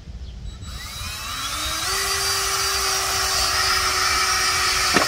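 DeWalt cordless drill spinning up with a rising whine, running at a steady pitch for about three seconds while driving a screw into an electrical box, then stopping.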